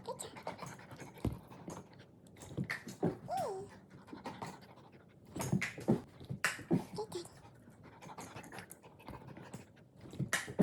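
A pet dog panting, with scattered light taps and knocks and one short falling squeak about three seconds in.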